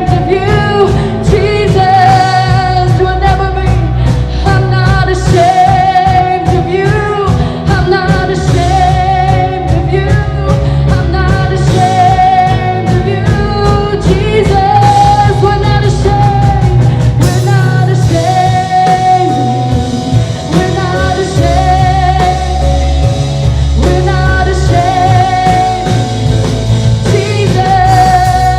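Live worship band playing a rock-style song, with a sung melody of long held notes over guitar, bass and drums.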